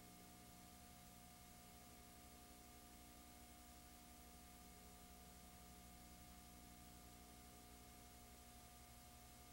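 Near silence: only a faint steady hum and hiss, with no sound from the engraving work.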